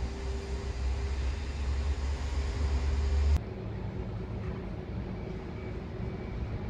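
Domestic cat purring while being stroked: a low, steady rumble. Its character changes abruptly about three and a half seconds in.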